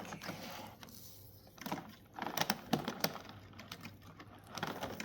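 Model train running on the layout, its wheels clicking irregularly over the track joints, in small clusters of clicks.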